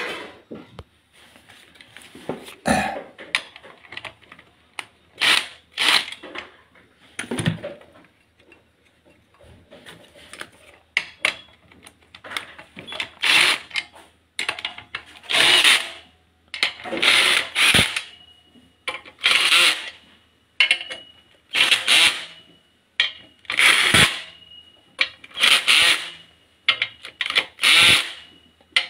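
Cordless drill driving bolts in short repeated bursts, each under a second, coming about every two seconds in the second half: fastening a clutch pressure plate onto the flywheel.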